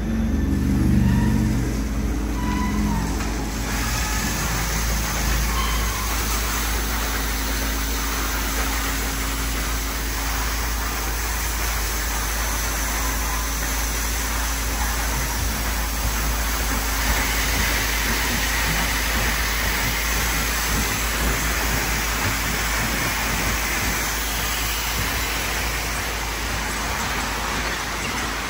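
Automatic tunnel car wash at work: rotating wash brushes scrubbing a soapy car amid water spray, a steady, dense rushing noise. A low motor hum runs under it for the first few seconds.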